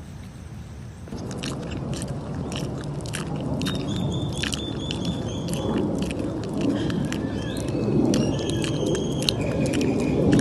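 Baby tapir chewing and smacking its mouth, starting about a second in: many wet clicks and crunches. From about halfway in, short high whistling tones come over the chewing.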